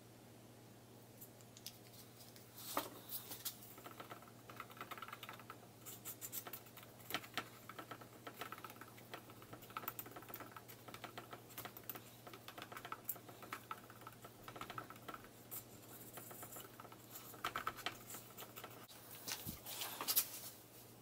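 Epoxy resin being stirred with a stir stick in a plastic cup: rapid, irregular scraping and tapping against the cup walls, with a few louder clicks and knocks near the end. A steady low hum runs underneath.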